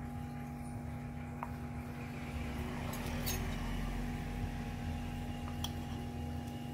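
A few faint clicks and light knocks from a glass plate and a metal spoon being handled, over a steady low hum.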